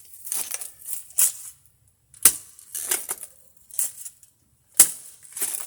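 A metal digging tool striking and scraping into soil by hand, a sharp strike about every second with gritty scrapes between.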